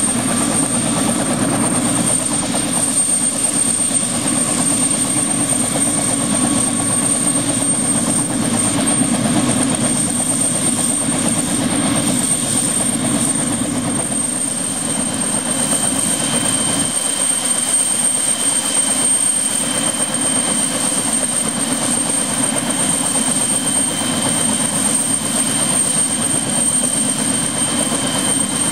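Bell LongRanger helicopter running on the ground: the turbine engine and spinning main and tail rotors make a loud, steady noise with a high, steady whine over it. A second, lower whine comes in about halfway through.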